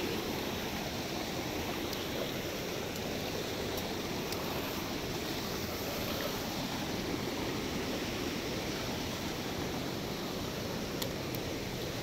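Small forest stream rushing over rocks in a steady, even flow.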